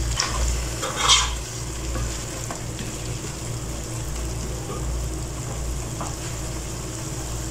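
Wooden spatula stirring and scraping minced meat and potato cubes in a nonstick pot as they fry (bhuna), with a soft sizzle and a louder scrape about a second in, over a steady low hum.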